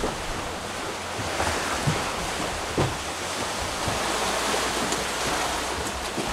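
Sea rushing and washing past a sailing catamaran under way in open-ocean swell, with wind on the microphone. A couple of brief low bumps come about two and three seconds in.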